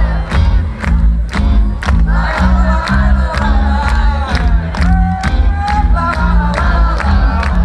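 Live pop-rock band playing loud through a festival PA, with a heavy bass line and a steady drum beat, while the crowd near the microphone shouts and sings along.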